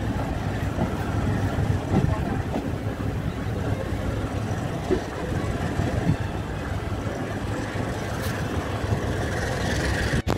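Passenger coach of a diesel-hauled train running on the rails, heard from an open window: a steady, low running noise with a few faint knocks.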